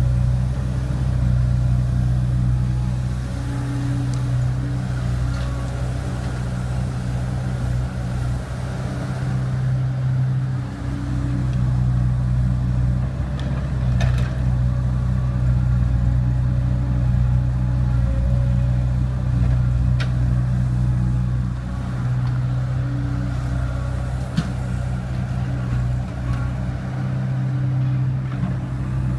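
Excavator's diesel engine running steadily while it digs and loads soil into a dump truck, with a few sharp knocks scattered through.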